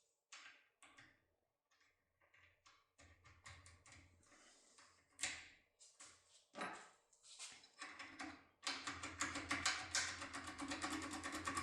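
Faint metallic clicks and scrapes of a foil-wrapped impression lockpick being worked inside a lock cylinder. Near the end they turn into a fast, even rattle of clicks.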